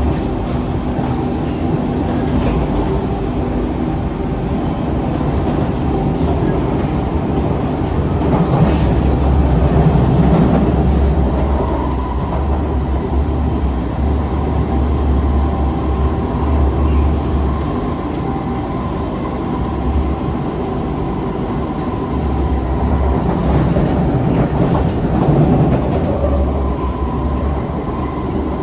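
SMRT C651 metro train running at speed, heard on board: a steady low rumble with the steady tones of its Siemens GTO-VVVF traction motors. The rumble swells louder about nine seconds in and again near the end.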